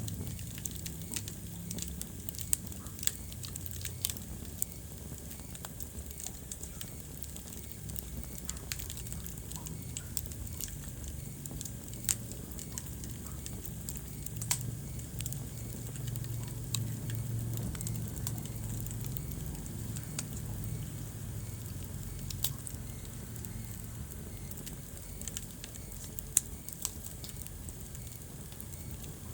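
Wood fire burning in a fireplace: a steady crackle of small irregular pops, with a few louder snaps, over a low rumble.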